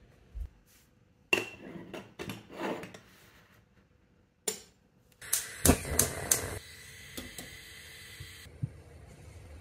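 Red aluminium Bialetti Rainbow moka pot being put together and set on a gas hob: scattered metallic clinks and scrapes, then a sharp knock about four and a half seconds in. A quick cluster of loud clicks follows, with a steady hiss lasting about three seconds that then stops.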